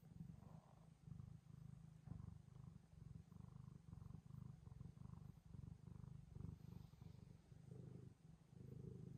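Long-haired tabby cat purring while being stroked on the head: a soft, low rumble that swells and eases in a steady rhythm.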